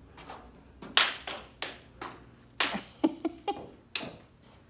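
A string of sharp, irregularly spaced hand claps, about nine of them, each ending quickly.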